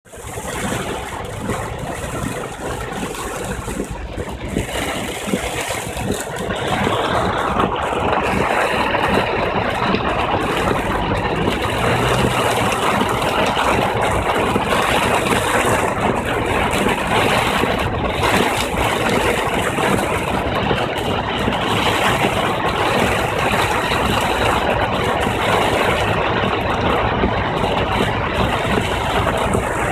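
Heavy rain falling on a car's roof and windscreen, heard from inside the cabin, over the car's running engine and tyres on a flooded road. The rain grows louder about seven seconds in.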